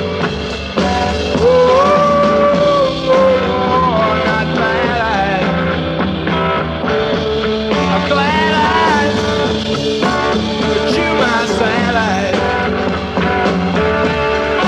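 Rock band playing an instrumental passage between sung verses, with a lead melody line that bends and slides in pitch over the band.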